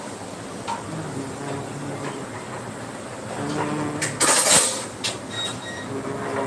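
Aluminium foil trays handled on a steel kitchen counter, with a loud, brief crinkling scrape about four seconds in and a few light clicks.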